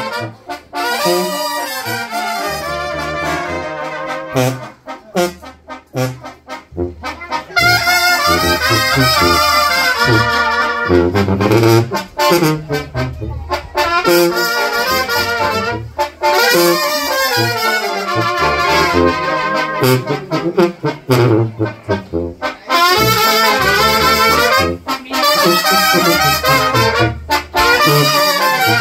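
Mexican brass band (banda de viento) playing: a sousaphone's bass line under trumpets and trombones. It plays softer for the first several seconds, then comes in louder at about seven seconds.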